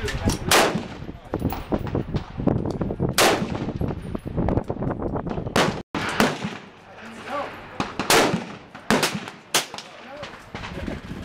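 Rifle shots on a firing range: a string of sharp reports with echo, unevenly spaced, some loud and close, others fainter from neighbouring lanes. A brief gap in the sound comes about six seconds in.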